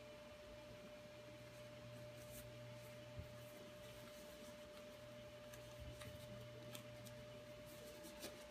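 Near silence: room tone with a faint steady whine and a low hum, and a few faint ticks.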